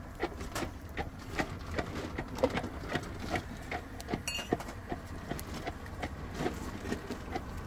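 An irregular series of light clicks and knocks, several a second, over a steady low rumble, with a brief high squeak about four seconds in.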